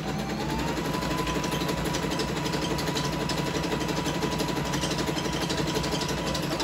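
Singer Fitline 6280 electric sewing machine starting up and sewing a double zigzag at full stitch length. The motor whine rises over the first second to a steady high speed under a fast, even clatter of needle and feed, then winds down at the very end.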